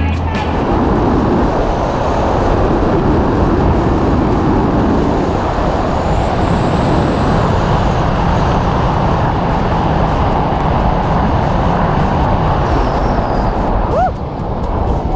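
Rushing wind buffeting the camera's microphone during a tandem skydive, a steady loud roar. A short rising whistle-like tone cuts in near the end.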